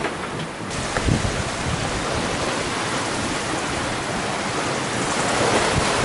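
Steady rush of wind and breaking waves around a sailboat under sail in rough seas. There is a brief knock about a second in, and it grows louder near the end.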